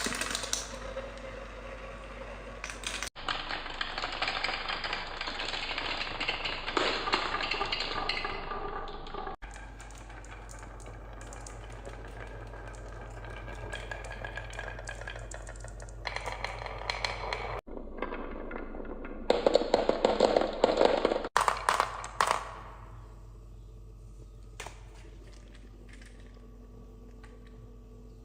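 Marbles rolling and clattering along a toy marble-run track, a continuous dense rattle of small clicks. Several abrupt cuts change it, with a louder burst of clatter around 19 to 21 seconds in.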